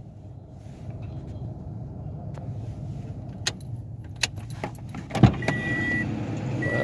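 Toyota Passo's 1.0-litre engine idling with a steady low hum, in a car that has logged a cylinder 2 misfire code. A few sharp clicks and a loud thump come about five seconds in, then two short high electronic beeps near the end.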